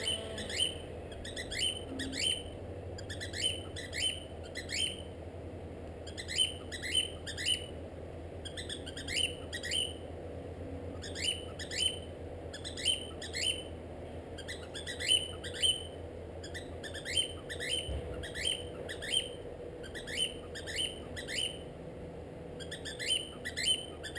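Cockatiel chirping: short calls that fall sharply in pitch, in quick runs of two to four, repeated every second or two.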